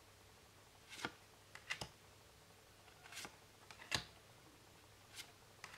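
Faint soft clicks and flicks of tarot cards being handled and flipped one at a time through a deck, about half a dozen in all.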